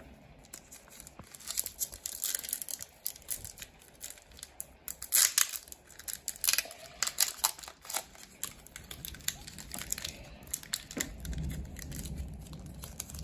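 Foil Pokémon booster pack crinkling and tearing as it is twisted and worked open by hand, in irregular crackles that are loudest about five seconds in.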